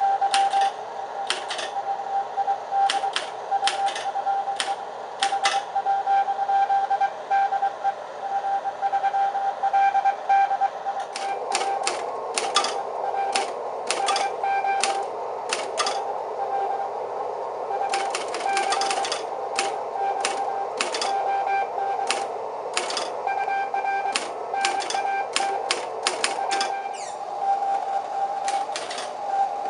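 Morse code (CW) signal received on the 20 m band, heard from the receiver as a single steady tone keyed on and off in dots and dashes. Over it, typewriter keys clack in bursts as the message is copied by hand.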